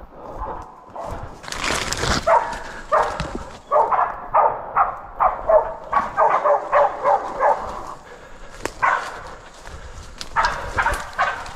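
Bay dogs barking at a wild pig they are holding at bail, short barks at about two or three a second with a short lull about two-thirds through. A brief loud rush of noise comes just before the barking starts.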